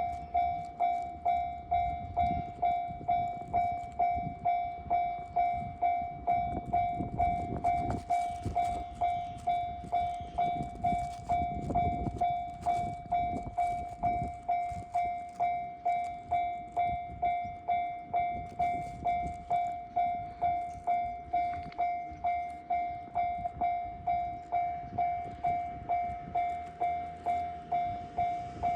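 Japanese level-crossing warning bell ringing, an electronic ding repeating evenly at about two strikes a second. Under it a low rumble swells and fades in the first half.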